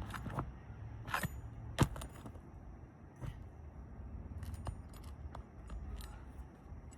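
Metal clinks and sharp clicks of a tool working nails out from under a composition shingle, irregular taps with a few ringing metallic hits, the loudest click about two seconds in.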